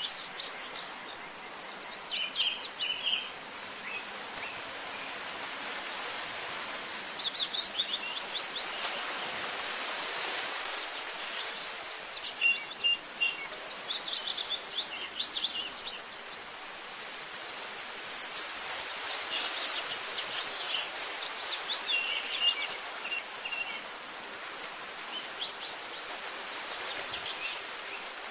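Birds chirping in short runs of quick, high notes every few seconds over a steady rushing noise.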